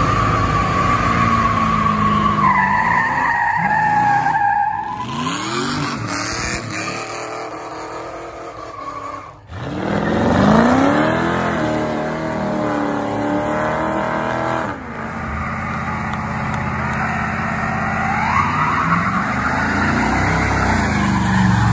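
Car engines revving hard during burnouts while the rear tyres squeal and spin on the pavement, several burnouts cut one after another. Engine pitch rises and falls with the throttle, and the sound changes suddenly about 9 and 15 seconds in.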